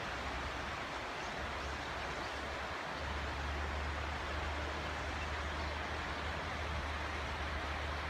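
Steady rushing noise of flowing river water, with a low wind rumble on the microphone that eases about a second in and comes back strongly about three seconds in.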